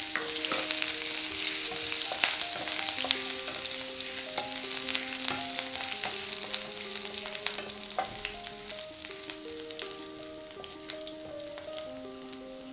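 Green chillies, grated ginger, cumin and coriander seeds sizzling in hot oil in a nonstick pan as they are stirred with a wooden spatula, with scattered light clicks of the spatula on the pan. The sizzle is strongest at first and slowly dies down.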